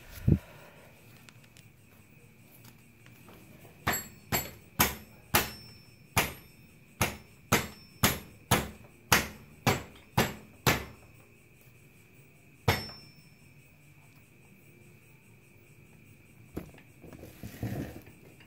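Repeated sharp knocks, about two a second for several seconds with single strikes before and after: the rear wheel and axle of a motorcycle being banged forward in the swingarm, so the shortened drive chain can be tensioned again.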